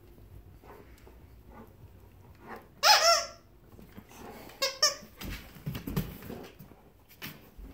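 Squeaker in a plush hedgehog dog toy squeaking as a dog bites it: one loud squeak about three seconds in, then two short quick squeaks just before the five-second mark. Softer low rustling follows.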